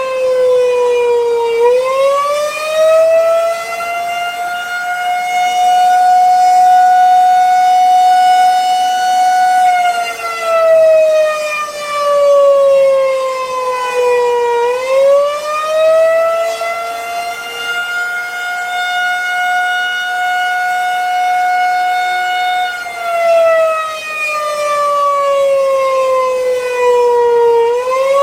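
Federal 2001-130 electromechanical siren sounding an attack signal on its 8-on/5-off timing: it winds up and holds a steady high wail for about eight seconds, then coasts down in pitch for about five, twice over, and winds up again near the end. The loudness swells and fades every couple of seconds.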